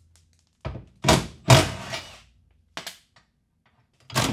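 An aluminum bumper crash beam knocking against the car body as it is worked loose and pulled off its mounts: five separate knocks, three of them loud, the last near the end.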